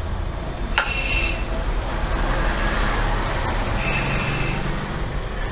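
Steady low hum and background noise, with a single sharp click about a second in as the LG CRT television is switched on.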